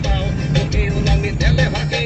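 Music with a heavy, pulsing bass beat, over the running noise of a moving vehicle.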